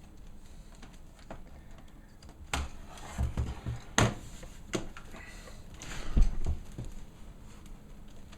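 A string of sharp plastic clicks and knocks from the HP EliteBook 6930p laptop being handled and reassembled. There are about seven of them between two and a half and seven seconds in, and the loudest knock comes about six seconds in.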